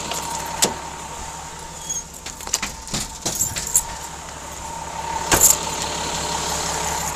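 Car keys jangling with a run of clicks and knocks as a car's trunk is unlocked and opened, the loudest a sharp clack about five seconds in. A faint steady whine sits underneath.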